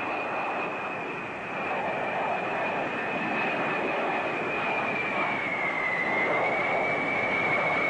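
Boeing B-52 Stratofortress's eight jet engines running as the bomber flies low in a steep banking turn: a steady rushing noise under a high whine. The sound grows louder about a second and a half in, and the whine dips slightly in pitch about five to six seconds in.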